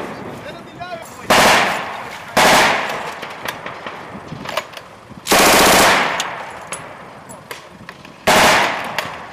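Four short bursts of automatic machine-gun fire, the third one the longest, each fading away in an echo.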